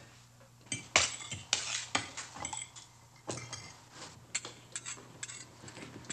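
Forks and spoons clinking and scraping against plates during a meal: an irregular scatter of sharp clinks, the loudest about a second in.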